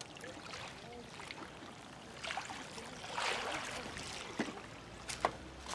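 Soft waterside noise while a fishing rod is cast and its tackle handled: a short swishing rush about three seconds in, then a few sharp clicks near the end.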